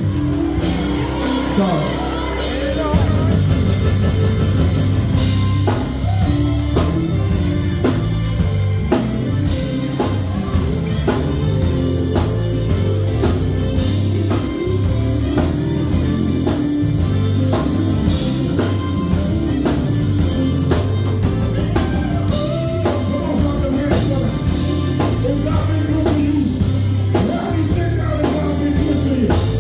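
Band music with a drum kit keeping a steady beat under a strong bass line, and singing over it.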